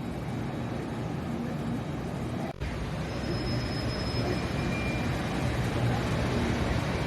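Steady low rumble of a train at a station platform, with a brief break about two and a half seconds in and faint high tones in the middle.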